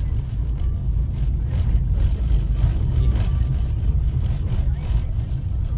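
Steady low engine and tyre rumble inside the cabin of a Tata Tiago hatchback driving along a rough, broken lane.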